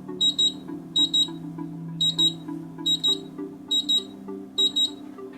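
Tecnosicurezza Pulse Basic safe lock keypad giving a short high double beep for each key pressed in turn, six in a row about a second apart. Each double beep confirms that the key is working in the keypad test. Background music plays underneath.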